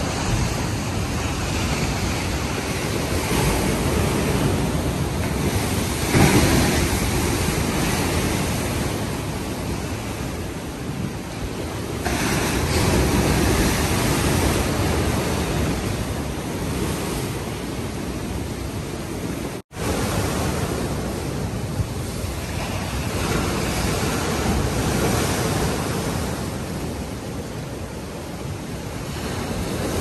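Heavy surf breaking and surging against a concrete seawall and rocks in rough, high-tide seas, a continuous rushing that swells and eases with each wave. The sound cuts out for an instant about two-thirds of the way through.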